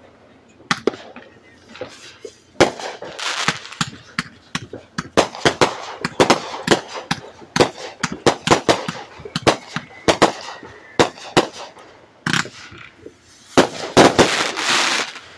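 Fireworks going off: many sharp pops and bangs in quick clusters, then a dense crackling burst near the end.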